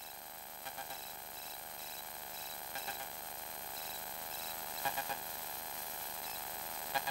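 Steady electrical buzz and hum in a light aircraft's cockpit audio feed, with faint repeating ticks of interference and a few faint brief noises.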